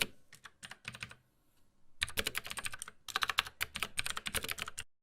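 Typing on a computer keyboard: a few scattered keystrokes, a short pause, then two quick runs of rapid keystrokes that stop abruptly near the end.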